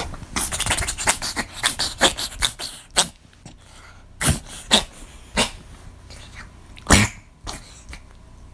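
American Shorthair cat sneezing in a fit: a fast run of short, sharp sneezes over the first three seconds, then several more single sneezes spread further apart. The owner puts the sneezing down to fine-dust air pollution irritating its airways.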